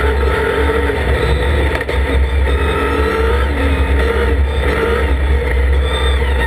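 Dacia Duster No Limit race car's engine heard from inside the cockpit under hard acceleration, the revs rising and falling repeatedly, over a steady deep rumble.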